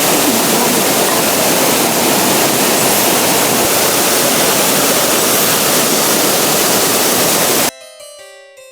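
Loud, steady rush of a mountain river's flowing water. About three-quarters of the way through it cuts off abruptly, and soft piano-like background music takes over.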